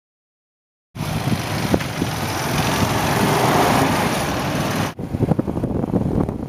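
Silence for about the first second, then a small motorbike running with heavy wind noise on the microphone. About five seconds in the sound cuts to the bike riding along, with wind buffeting the microphone.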